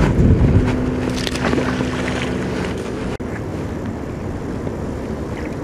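Wind rumbling on the microphone, with a steady hum over it for the first three seconds that stops abruptly.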